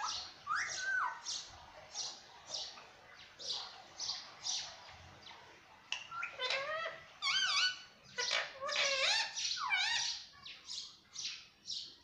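Indian ringneck parakeet calling: a steady series of short, high chirps, about two or three a second, with two bursts of louder, bending whistled calls past the middle.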